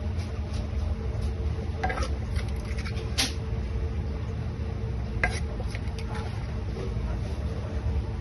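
Kitchen utensils and dishes clinking and tapping a few times over a steady low kitchen hum; the sharpest clinks come about three seconds in and again about five seconds in.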